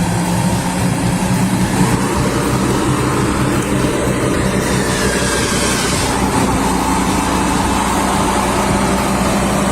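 Engine of a heavily loaded log truck running steadily as it drives.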